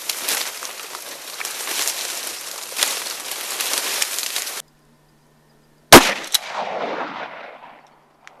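Dry cattails and reeds rustling and crackling as someone pushes through them, then, after an abrupt cut, a single loud shotgun blast about six seconds in, a fainter sharp report about half a second later, and the echo dying away.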